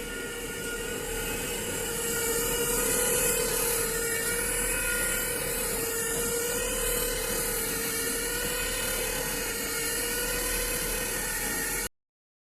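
A machine running with a steady whine over a high hiss, the pitch wavering slightly; it cuts off suddenly near the end.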